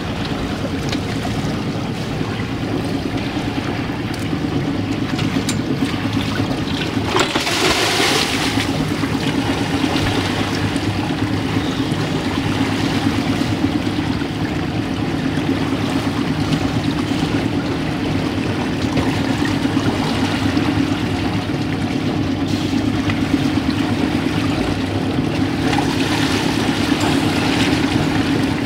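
A sailing yacht's engine running steadily under way, with water rushing along the hull. A loud burst of splashing comes about seven seconds in.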